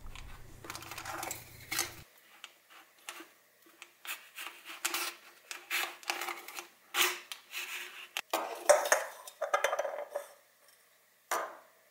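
Thin aluminium beer can being cut around its top with a razor blade: irregular scraping, crinkling and clicking of the thin metal as the blade works through it and the can is turned.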